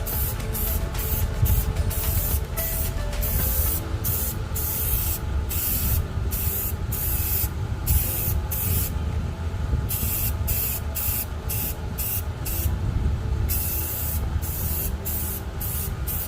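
Aerosol can of flat black paint with primer spraying in repeated short bursts, with a couple of longer pauses, as a Bondo roof patch is coated.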